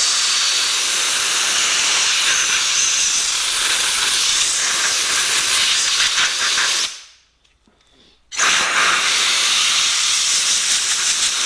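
Compressed-air blow gun blasting onto a wet milling cutter, drying off the rinse water: a steady hiss of air in two long blasts, broken by a pause of about a second and a half roughly seven seconds in.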